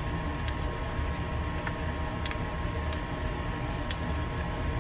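Scattered light clicks of small metal parts inside a Penn 105C spinning reel's gearbox as the arm is twisted into place on the main gear, over a steady low hum.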